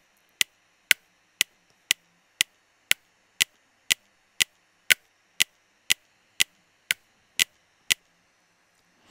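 Software metronome click from Usine Hollyhock's metronome module, ticking evenly at 120 BPM, two short sharp clicks a second. The clicks stop about eight seconds in.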